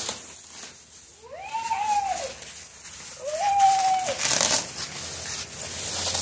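Packaging crinkling and rustling as a washing machine is unboxed, with two drawn-out high-pitched voice calls about a second apart, each rising, holding and then falling.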